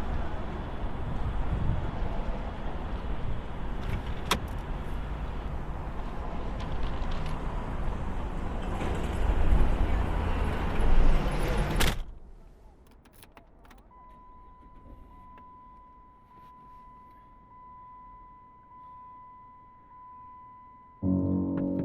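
A car's engine and road noise, a steady rumble and rush that cuts off abruptly about twelve seconds in. Then there are a few small clicks and a steady high beep, and music starts near the end.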